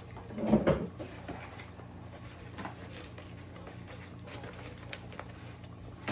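Kitchen handling sounds: a muffled thump about half a second in, then a few light clicks and taps, over a steady low hum.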